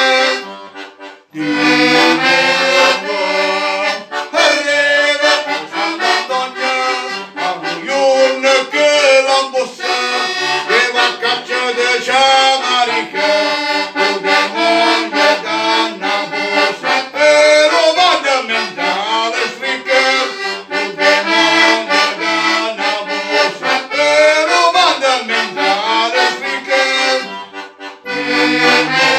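Organetto (diatonic button accordion) playing an instrumental tune. It breaks off briefly about a second in, then plays on steadily, with a short dip near the end.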